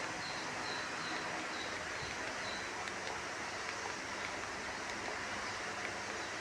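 Steady background hiss with no distinct event, with a faint high chirp repeating about twice a second during the first couple of seconds.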